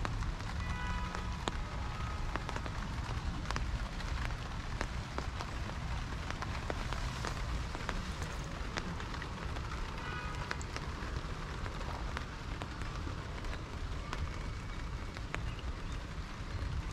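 Steady rain falling, with many sharp drop ticks throughout. A short, high pitched sound comes twice, about a second in and again about ten seconds in.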